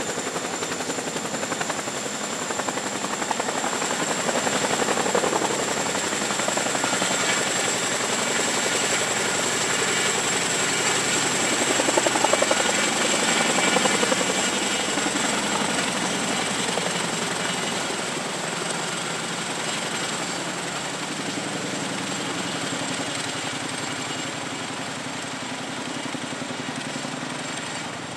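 Canadian Forces CH-147 Chinook tandem-rotor helicopter lifting off and climbing away: fast rotor blade chop over a steady high turbine whine. It is loudest about halfway through, then slowly fades.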